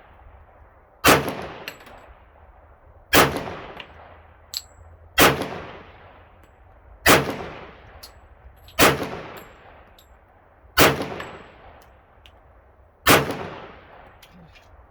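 A 1911 .45 ACP pistol fired slowly, seven shots roughly two seconds apart, each followed by a trailing echo. The pistol cycles through the ball ammo with no malfunction.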